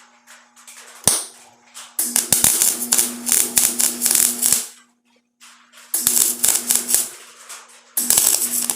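Welding arc crackling in three short bursts while rust pinholes in sheet steel are filled against a copper backer: the first runs about two and a half seconds, the second about a second, and the third starts near the end. A sharp click comes about a second in, and a steady low hum runs underneath.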